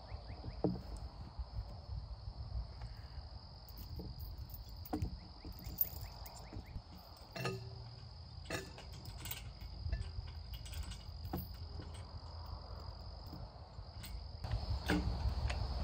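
Steady high-pitched insect chorus, with scattered metallic clinks and knocks as a chain is wrapped and fastened around a wooden utility pole.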